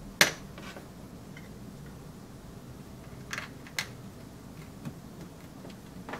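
Clicks from the parts of an AP Bobinquick-135 35mm film loader being handled and fitted: one sharp click about a quarter second in, then a pair of lighter clicks about three and a half seconds in and a few faint ones after.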